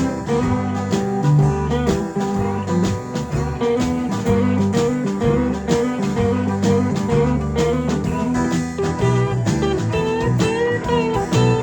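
Instrumental break of a blues song: plucked guitar playing over a steady bass line, with notes bent or slid near the end.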